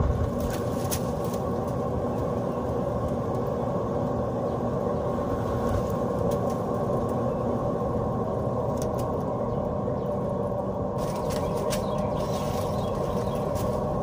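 Electric blower motor running steadily, pushing air through an all-metal dryer duct and out of the wall vent hood, with a few faint ticks over the steady hum.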